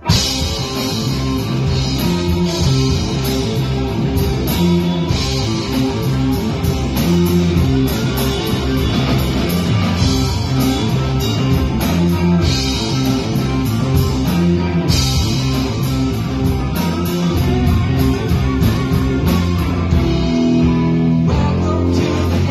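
Live rock band playing loud, with electric guitars over a drum kit beat; the band comes in together suddenly at the very start.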